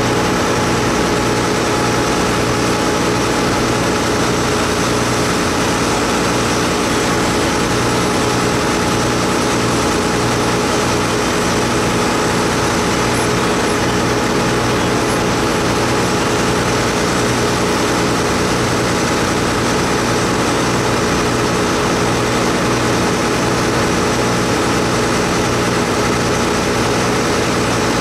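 Ferry's diesel engine running steadily underway, a constant drone with an even low rhythmic pulse under it.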